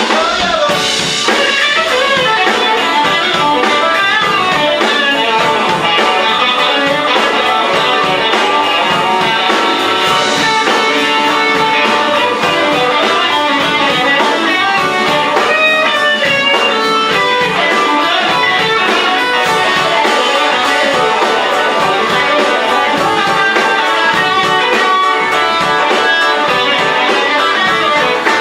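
Live band playing an instrumental passage with the electric guitar to the fore, over a steady drum beat.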